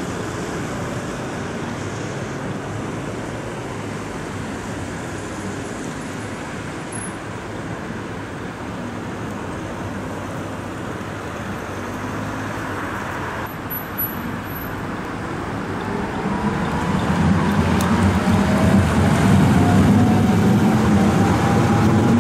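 Steady road traffic, then a yellow low-floor electric tram and cars pass close by, getting louder about two-thirds of the way through. The tram's traction motors give a slowly rising whine as it accelerates.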